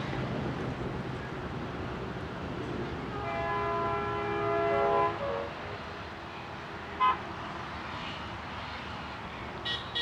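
Horn of an approaching ALCo WDG 3A diesel locomotive, sounded once for about two seconds, distant, a several-note chord ending with a brief lower note. Steady background noise throughout, with a short sharp chirp about seven seconds in and two more near the end.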